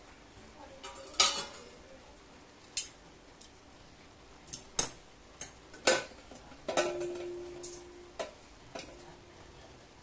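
Scattered clinks and clatter of metal kitchen utensils and cookware, several sharp strikes at irregular intervals; one strike about seven seconds in leaves a brief ringing tone.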